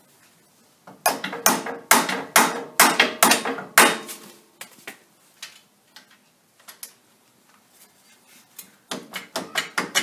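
A hammer striking a socket set on the end of a loosened hub retaining bolt on a Jeep Wrangler YJ's Dana 30 front axle, driving the stuck wheel-bearing hub out of the steering knuckle. The blows are sharp metal-on-metal strikes with a short ring: a run of about ten, then a few scattered taps, then a quicker run near the end.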